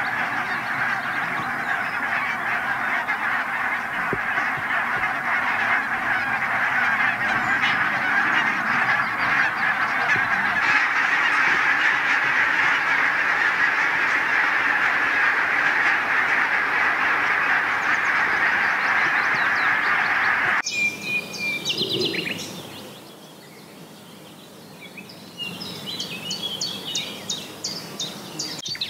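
A large flock of geese honking together in a dense, continuous chorus. About two-thirds of the way through it cuts off abruptly, and songbirds singing in quick repeated phrases take over near the end.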